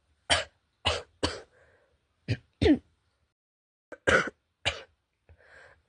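A girl coughing: about seven short coughs in three groups, with faint breaths in between.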